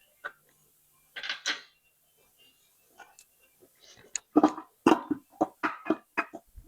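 Metal tools and parts clinking and clattering in short, irregular knocks, sparse at first and then coming quickly in the second half.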